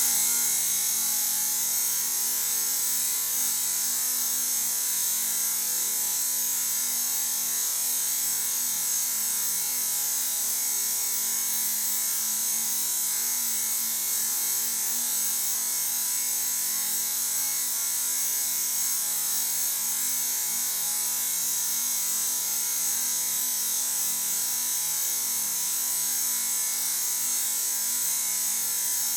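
A workshop tool running continuously with a steady high hiss and a faint steady hum beneath it.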